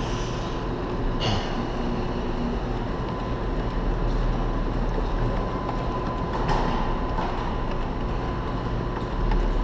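Claw machine running: a steady mechanical hum and whir with a thin, steady high tone, and two short clicks, about a second in and again near six and a half seconds.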